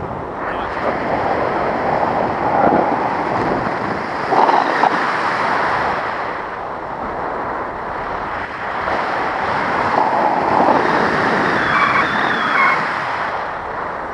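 Wind rushing over the microphone, swelling and easing in gusts: louder a couple of seconds in and again from about the middle to near the end.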